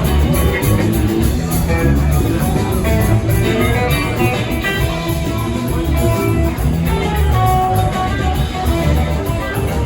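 Live rock band playing an instrumental passage: guitar lines over a steady bass and drums.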